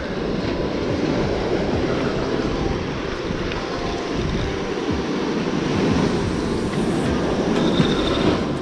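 Breaking surf: a steady, unbroken rush of ocean wave noise.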